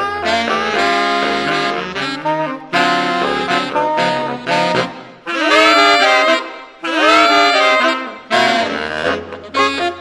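Saxophone quartet playing jazz: held chords in several voices, two swelling notes that bend upward in the middle, and short clipped notes near the end.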